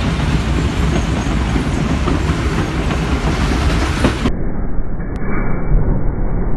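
Train running along the track, heard from aboard: a steady rumble of wheels on rail with a few clacks. It turns duller about four seconds in.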